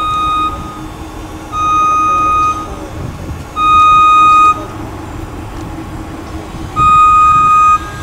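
A truck's reversing alarm: loud one-second beeps at a single steady pitch, three full beeps plus the end of one, with a longer pause in the middle, over a steady low hum.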